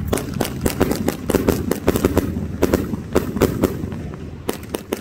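A 191-shot 'Jamming' firework cake firing in rapid succession: a quick string of sharp launch shots and bursts, several a second, easing slightly near the end.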